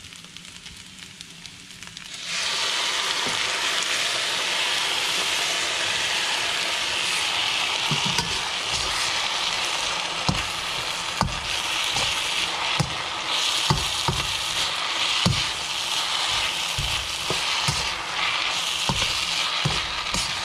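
A beef, vegetable and ramen noodle stir-fry sizzles loudly in a hot pan. The sizzle starts suddenly about two seconds in, as the sauce of beef broth, oyster sauce and soy sauce goes in, then carries on steadily with occasional low knocks of stirring.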